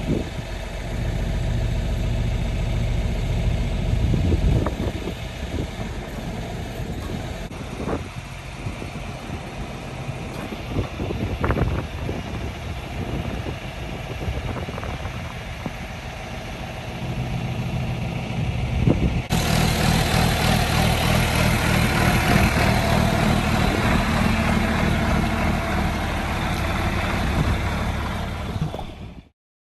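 John Deere 4430 tractor's diesel engine idling steadily, with a few short knocks. About two-thirds of the way through the sound suddenly becomes louder and harsher.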